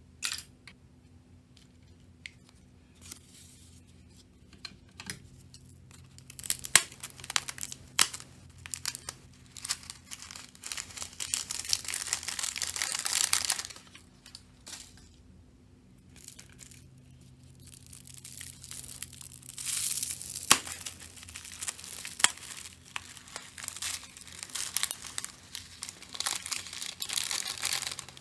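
Slime being stretched, squeezed and pulled apart by hand, crackling and tearing with sharp pops. The crackle swells for a few seconds at a time, twice.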